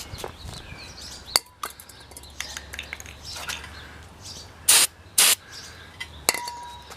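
Two short, loud hissing spray bursts about half a second apart, a little past the middle, among small metallic clicks and clinks of handling.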